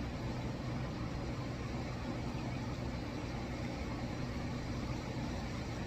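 Steady low mechanical hum, even throughout with no distinct events.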